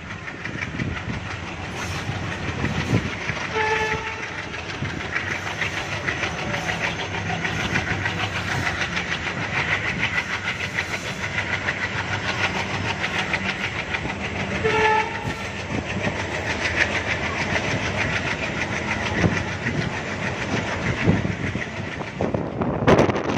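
A train running past, its wheels clattering steadily over the rail joints, with two short horn toots about eleven seconds apart.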